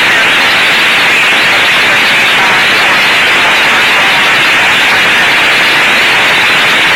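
Police walkie-talkie radio static from a prank sound effect: a loud, steady hiss with no voice in it.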